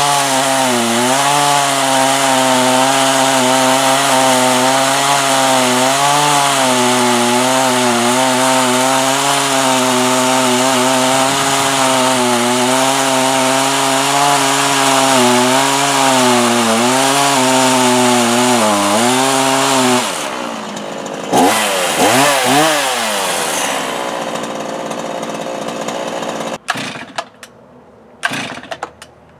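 STIHL two-stroke chainsaw running at full throttle while cutting into a tree trunk, its engine pitch dipping and recovering again and again as the fresh chain bites into the wood. About twenty seconds in, the throttle is let off: the engine winds down, revs briefly, then drops to a lower idle, and near the end the sound falls off sharply, broken by a few short bursts.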